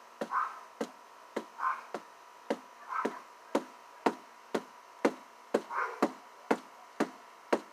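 Bare fists striking a towel-covered block over and over, about two sharp knocks a second: knuckle-conditioning punches.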